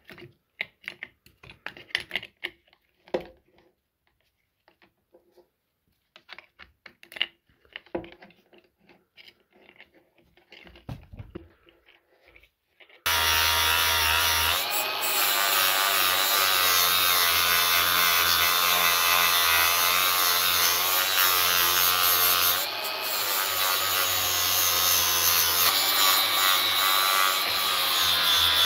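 Clicks and knocks of a flap disc being fitted onto an angle grinder. About halfway through, the grinder starts abruptly and runs steadily as the 80-grit flap disc grinds rust off the steel head of a sledgehammer.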